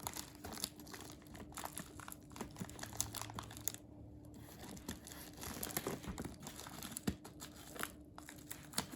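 Plastic and paper packaging crinkling and rustling in irregular crackles as it is handled and opened.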